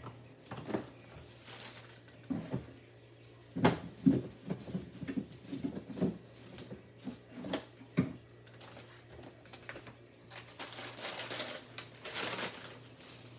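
Groceries being handled and set down, with scattered knocks and taps, then plastic bags rustling for about two seconds near the end. A faint steady low hum runs underneath.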